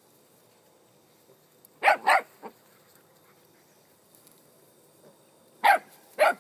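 Dog barking: two sharp barks about two seconds in, a fainter one just after, and two more near the end.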